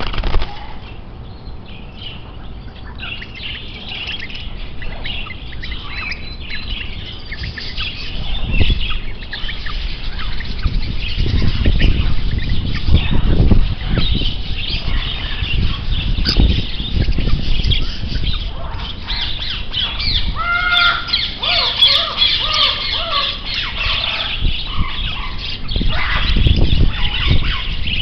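Many small cage birds chirping and twittering together over a low rumble on the microphone, with a few louder, clearer calls about twenty seconds in.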